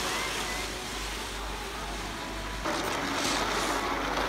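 Skis sliding over packed snow with wind on the microphone, a steady rushing noise that jumps louder about two-thirds of the way through.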